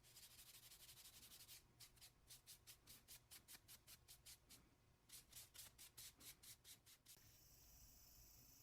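Faint hand-made rubbing or scraping strokes, several a second, in two runs with a short pause between them, set between stretches of steady hiss.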